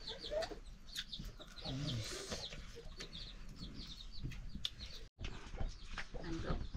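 Chickens clucking, with quick high chirps repeating several times a second through the first five seconds.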